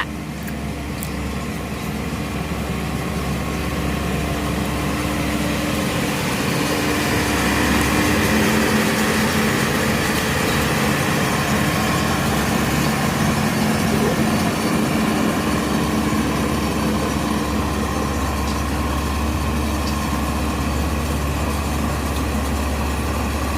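Rice combine harvester running steadily: a continuous mechanical engine drone that swells slightly a few seconds in and then holds.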